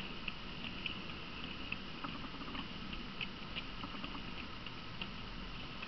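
Model railway train running: a steady high motor whine with irregular light clicks of small wheels running over the track and rail joints.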